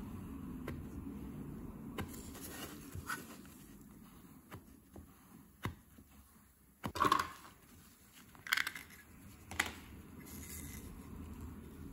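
Plastic squeegee scraping over adhesive film on a titanium plate, with scattered light clicks and a few louder short scrapes in the second half as the plate is handled and lifted, over a low steady hum.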